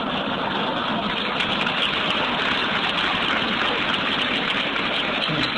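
A large audience applauding steadily after a joke in a speech. The recording is old and dull, with the treble cut off.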